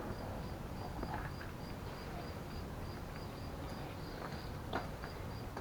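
Insect chirping steadily in the background, a short high pulse repeating about three times a second, with a faint click near the end.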